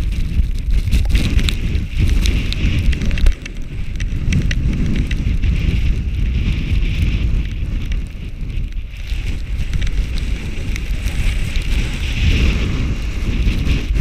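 Strong wind of a snowstorm buffeting the GoPro's microphone, a loud, steady low rumble with crackle, mixed with the snowboard scraping over snow as the rider sets off down the slope.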